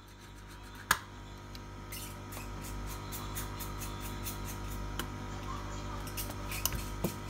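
A small metal screwdriver clicking and scraping against the tablet's frame and internal parts, with one sharp click about a second in and a few more near the end, over a steady electrical hum.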